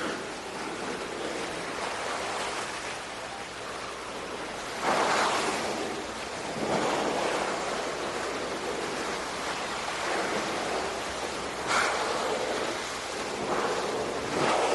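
Sea waves washing and surging, a steady rushing noise with louder swells a few times.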